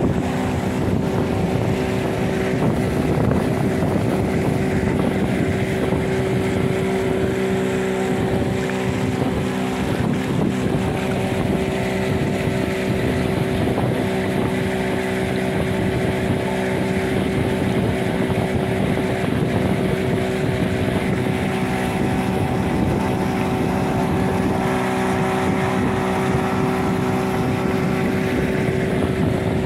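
The motor of a chaldonka river motorboat running steadily at cruising speed, its hum holding one even pitch throughout, with wind noise on the microphone.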